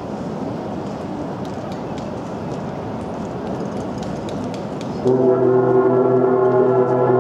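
Steady background hubbub with faint scattered clicks, then about five seconds in a drum corps brass line comes in loud on one long held chord.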